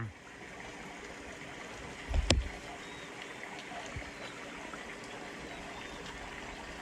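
Steady, faint rush of flowing stream water, with one sharp knock about two seconds in.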